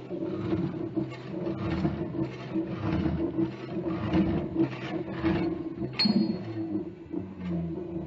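Steel-cutting saw running: a steady motor hum under a rhythmic rasp of the blade through steel, about two strokes a second, with a sharp metallic ping about six seconds in.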